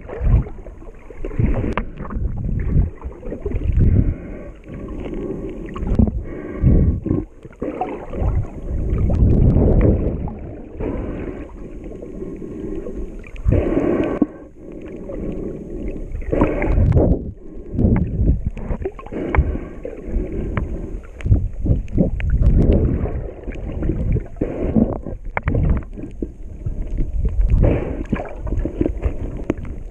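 Muffled underwater noise picked up by a snorkeler's camera in its waterproof housing: water surging and sloshing around it, swelling and dipping irregularly, with occasional knocks.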